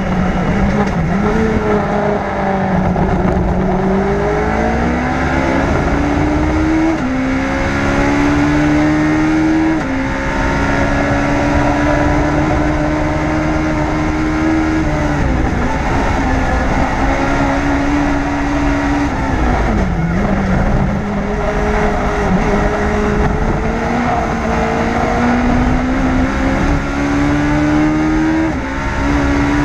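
Onboard a Legends race car: its four-cylinder Yamaha motorcycle engine running hard at racing speed, its pitch climbing through several upshifts and falling away twice when lifting for corners, over steady wind and road rush.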